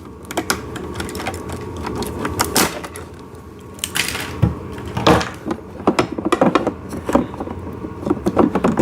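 Plastic and metal parts of a ride-on toy tractor being handled during assembly: irregular clicks and knocks, busier in the second half with a quick run of clicks near the end.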